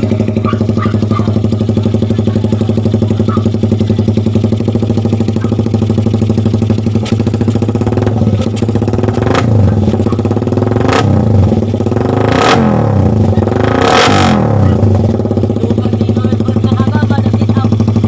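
Suzuki Raider 150 single-cylinder four-stroke engine, fitted with a 28 mm UMA carburettor, idling steadily through an aftermarket AUN exhaust. From about seven seconds in it is revved in a series of throttle blips, rising and falling in pitch with several sharp cracks, then settles back to idle near the end.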